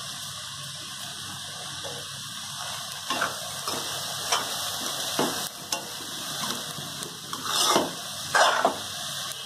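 A metal spatula stirring and scraping chopped elephant foot yam leaves around a metal pan, in short strokes that begin about three seconds in and are loudest near the end, over a steady hiss.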